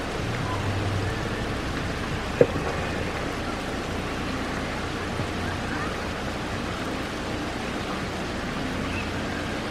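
Steady rain falling on puddled pavement and grass, with a low hum underneath and a single sharp tap about two and a half seconds in.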